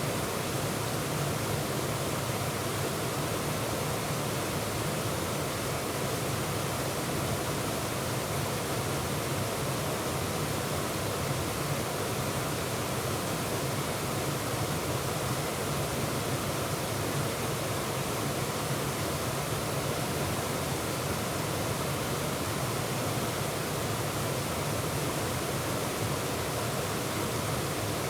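Waterfall and its stream rushing steadily: a dense, even roar of falling and churning water that does not change.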